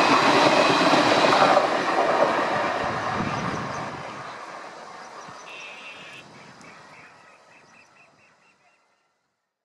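Indian Railways passenger coaches rolling past on the track, their wheels clattering over the rails, the sound fading steadily away as the train recedes. A faint, evenly repeated high-pitched call shows in the second half.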